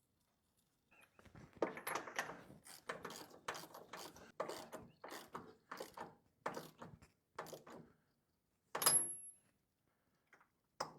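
Ratchet wrench and spark plug socket running a new NGK BPR5ES spark plug into a Kawasaki lawn tractor engine: short ratcheting strokes about two a second, then one sharper click near the end.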